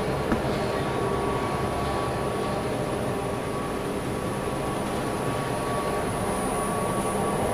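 Screw-press water squeezer (dewatering machine for plastic film and PP woven bag flakes) running steadily: a continuous mechanical drone with a thin high whine over it. One light knock just after the start.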